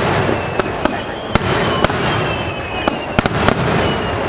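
Aerial fireworks bursting: about a dozen sharp bangs at irregular intervals over a constant rumble, with thin high whistling tones from whistling shells between them.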